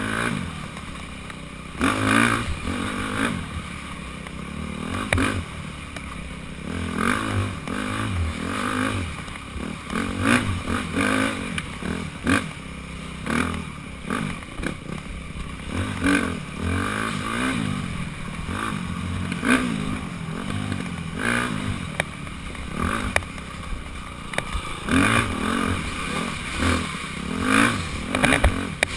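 Dirt bike engine revving up and down over and over as the throttle is worked through a tight trail, with frequent knocks and clatter from the bike over rough ground.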